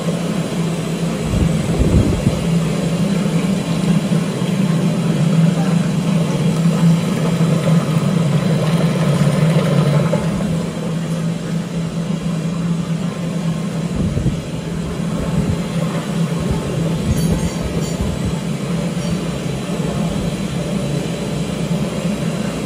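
Hydraulic high-speed paint disperser running, its electric motor driving the mixing shaft in a drum of paint: a steady, loud mechanical hum with a low drone that eases slightly about halfway through.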